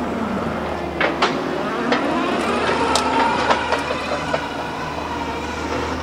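A heavy engine running steadily, with a low hum throughout and sharp metal clanks and squeaks on top, several of them in the middle seconds.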